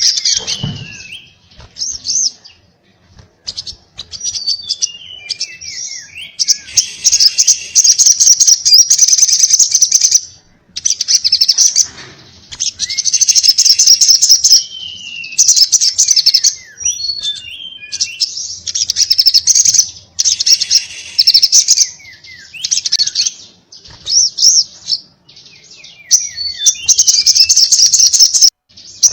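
A sogon (sogok ontong) bird singing hard. It gives phrases of rapid, high-pitched chattering a couple of seconds long, separated by short pauses, mixed with short falling whistled notes.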